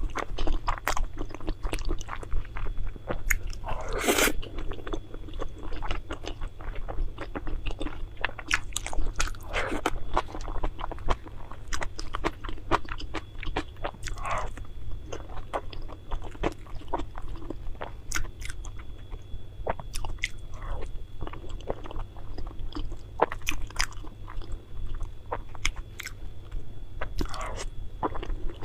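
Close-miked eating: a person biting and chewing food, with many irregular wet mouth clicks.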